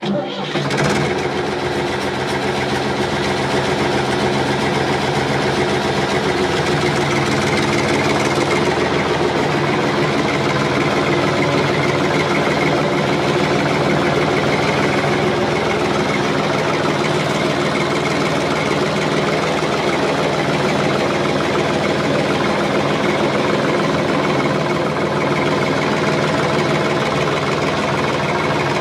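Large diesel engine of heavy farm machinery running steadily under load, its note shifting slightly about eight seconds in.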